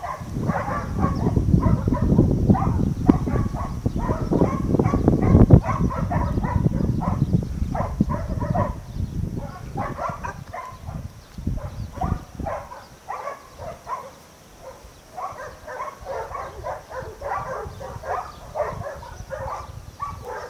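Several dogs barking over and over, many short barks overlapping, with a low rumbling noise in the first half.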